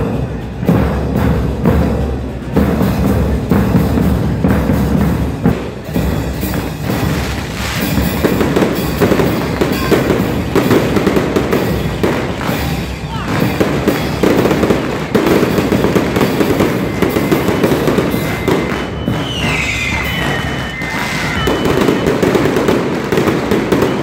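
Strings of firecrackers crackling in a rapid, continuous barrage. A drum band is playing under it in the first few seconds.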